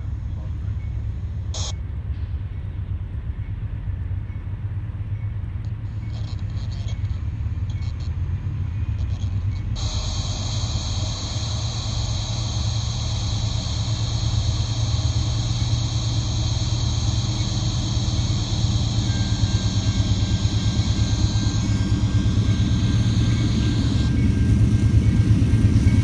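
Norfolk Southern freight train's diesel locomotives rumbling steadily, growing louder as the train comes closer. About ten seconds in, high steady whining tones join and last until near the end.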